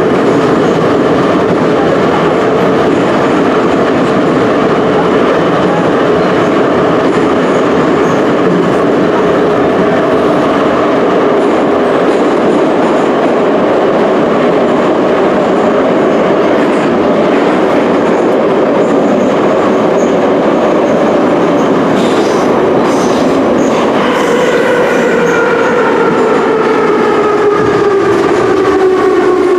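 Ezh3/Em-508T metro train running through a tunnel, with loud steady wheel and running noise. From a little past three quarters of the way in, the traction-motor whine falls steadily in pitch as the train slows.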